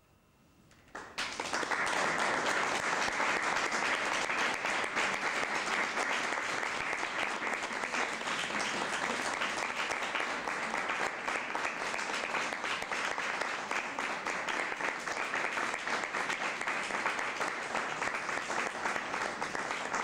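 Audience applauding. The applause breaks out about a second in and then holds steady.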